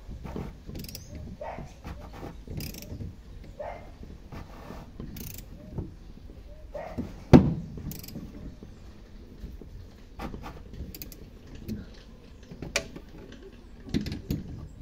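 Socket ratchet clicking, with metal scraping and knocking from a homemade tool as it turns a fuel pump lock ring tight on the fuel tank. One loud, sharp metallic knock comes about seven seconds in.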